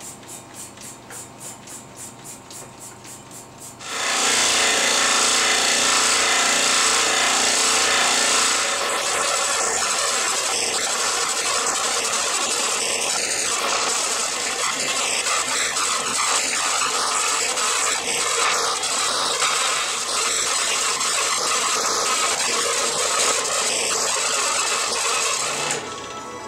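A scroll saw running and cutting through a wooden board: a loud, dense, steady buzz that starts abruptly about four seconds in and stops shortly before the end. Before it, a quieter ticking about four times a second.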